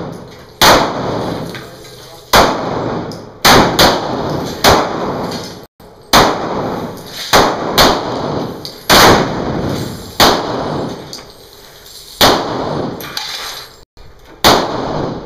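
Springfield XDm semi-automatic pistol firing a string of shots, about one a second at uneven spacing, each sharp crack trailing off in a ringing echo.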